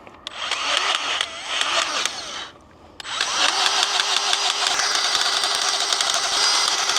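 A power tool running in two bursts: first a short run whose motor pitch wavers, a brief stop about two and a half seconds in, then a longer steady run with a fast rattle.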